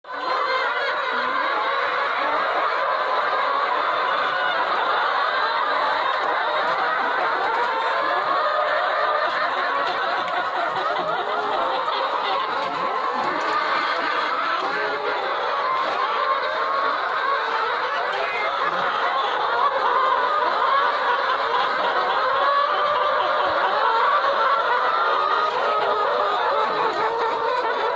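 A flock of BV 380 laying hens clucking together: a dense chorus of many short, overlapping calls.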